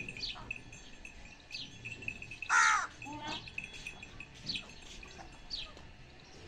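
Birds calling: short falling chirps repeat every half second or so, and a crow gives one loud harsh caw about two and a half seconds in.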